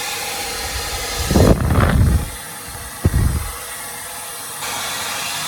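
1800 W hair dryer running on high speed with a steady airy hiss. About a second and a half in, and again about three seconds in, come loud low rumbling gusts.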